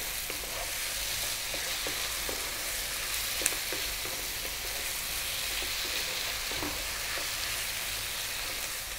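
Beef and tomato paste sizzling in a coated frying pan on high heat, stirred with a wooden spoon that scrapes and knocks against the pan in short strokes, with one sharp tap about three and a half seconds in. The tomato paste is being cooked out.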